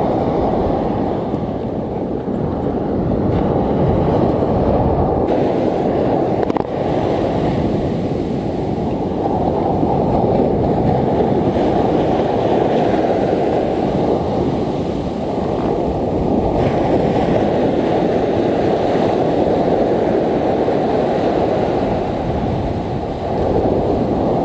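Steady rush of big surf breaking on a sandy beach, dulled by wind buffeting the microphone.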